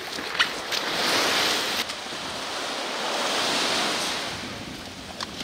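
Small waves breaking and washing up the shore in two surges, each a couple of seconds long. There is a brief knock just before the first and another near the end.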